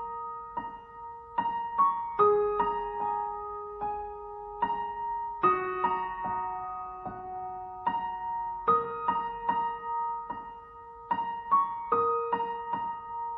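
Background music: solo piano playing a slow melody of single notes and chords that ring on after each strike.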